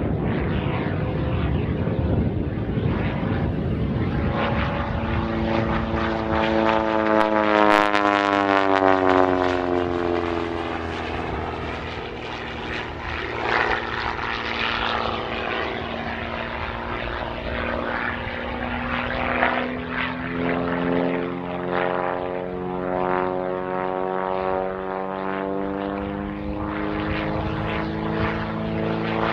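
Pitts Special aerobatic biplane's piston engine and propeller droning as it flies aerobatics. The note slides down in pitch, then climbs again near the end. It is loudest about eight seconds in.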